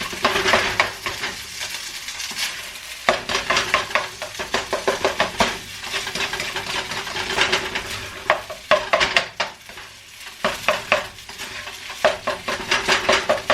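Egg fried rice being stirred and broken up in a hot non-stick wok with a non-stick spatula: quick runs of scraping strokes over a steady sizzle, pausing briefly a few times.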